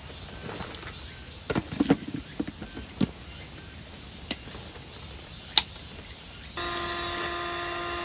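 Air mattress fabric rustling and a few sharp clicks as the valve and pump are handled. About six and a half seconds in, a small electric air pump switches on and runs with a steady hum.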